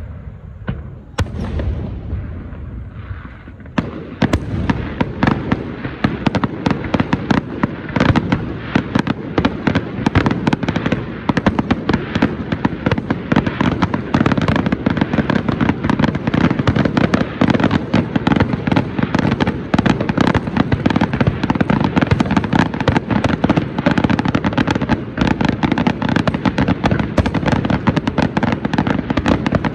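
A dense, rapid crackle of many small sharp pops that starts about four seconds in and keeps going without a break, after a fading rumble with a few separate cracks.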